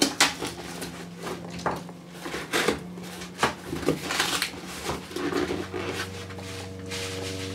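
Hands rummaging through loose foam packing peanuts in a cardboard box, a string of rustles and light knocks. A steady humming tone comes in near the end.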